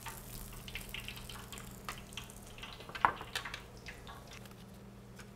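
Small horse mackerel deep-frying in a pot of hot oil: the oil crackling and spitting in scattered small pops, with oil dripping as the fried fish are lifted out with chopsticks. A sharp click about three seconds in, over a low steady hum.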